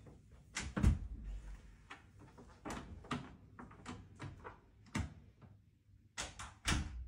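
An apartment front door being opened and shut: its lever handle and latch clicking, a low thud about a second in, a run of knocks and clicks through the middle, and a quick cluster of sharp latch clicks near the end.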